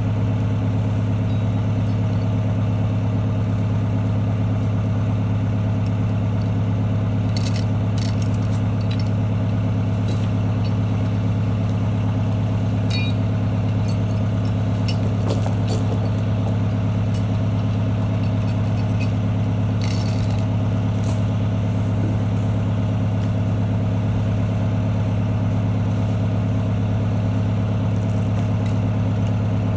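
C4 skidder's diesel engine running at a steady speed, with a few short clanks and rattles.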